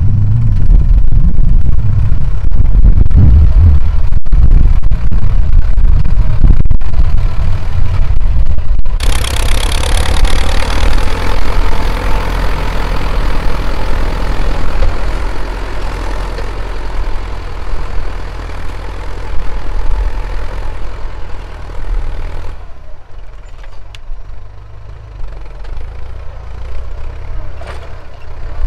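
Ford 6610 tractor's four-cylinder diesel engine running hard through a loud exhaust, so loud at first that the recording distorts. About nine seconds in the sound changes abruptly to a quieter, hissier engine sound, which drops again near the end.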